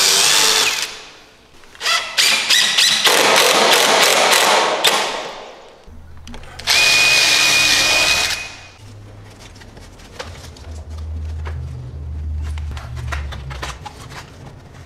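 A DeWalt cordless driver runs screws through a door jamb into the framing in three bursts, each one to three seconds long, the last with a steady high whine. After that come quieter light knocks of handling.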